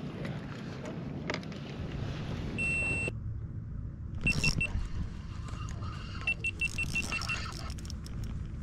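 Electronic beeping from a small device: one long high beep, then three short beeps just after a thump, and a quick run of about seven more beeps, all at the same pitch, over a steady low rumble.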